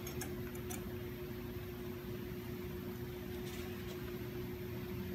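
Steady machine hum with a constant tone, from workshop machinery standing idle. A few faint small clicks in the first second as a router bit is pushed into the spindle's collet.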